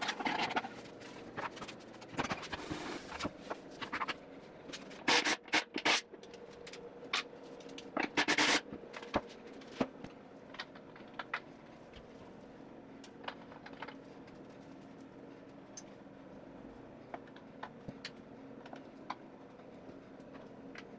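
A screwdriver scraping and clicking against the metal latch and hinge hardware of an old painted wooden box as the hardware is taken off. The scrapes and knocks are scattered, with louder scraping about five seconds in and again about eight seconds in.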